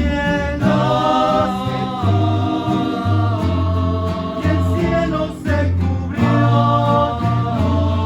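A rondalla singing in several-voice harmony over guitar accompaniment, in sung phrases with short breaks between them.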